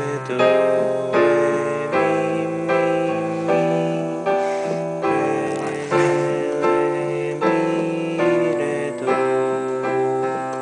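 Piano playing a chord progression under a simple melody, a new chord struck about every three-quarters of a second and each ringing and fading. It is a trial run of a reharmonisation written for the tune.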